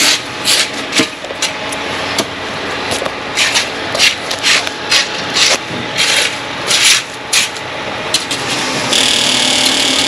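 Rake scraping through wet concrete in repeated strokes, about two a second, as the concrete is spread and levelled over the slab. Near the end a steady rushing noise with a low hum comes in.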